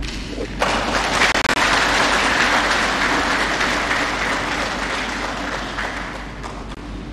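Audience applauding. It starts suddenly about half a second in and dies away gradually toward the end.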